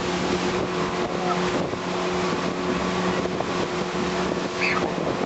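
Pontoon boat's motor running steadily under way, a constant hum with wind rushing over the microphone.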